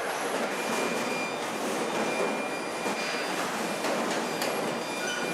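Steady machinery noise of a car body shop's robot line: a continuous hiss and whir with faint high whining tones and a few light clicks.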